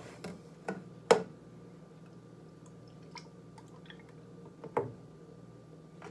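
A plastic measuring cup and a plastic gallon milk jug handled on a countertop: a few sharp knocks, the loudest about a second in, then faint irregular ticking as milk is poured from the jug into the cup.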